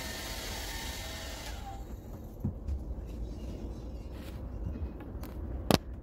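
Valera hair dryer blowing steadily, switched off about a second and a half in. Afterwards a few soft bumps and a sharp knock near the end as the dryer is set down.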